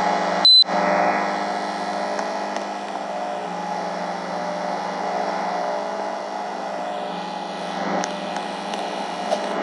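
Air conditioner running with a steady hum. About half a second in there is one short, loud, high-pitched beep.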